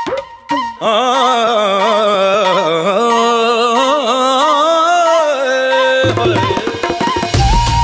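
Background music: a few drum strokes, then one long wavering melody for about five seconds, then drums and a heavy bass beat come in near the end.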